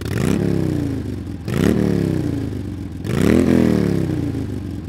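Motorcycle engine revved three times, each rev climbing quickly in pitch and then sinking slowly back, with a short rush of noise as each rev starts.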